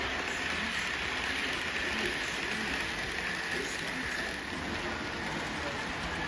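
Steady rushing hiss of model trains running on the layout's track, with faint background chatter.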